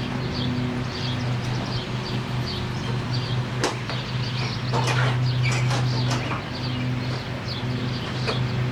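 Steady low mechanical hum with short high bird chirps repeating about twice a second, and a few sharp clicks near the middle and near the end.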